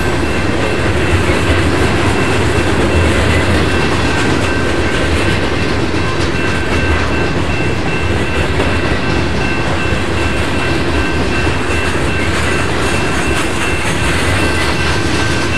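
Covered hopper cars of a freight train rolling past close by: a steady, loud noise of steel wheels on rail with clacking over the joints. A few faint steady high-pitched tones run through it.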